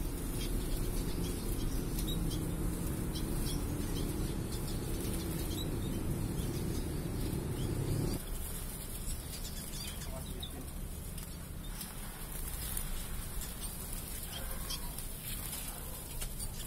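Small aviary finches chirping, short high calls scattered throughout, over a low steady rumble that stops abruptly about eight seconds in.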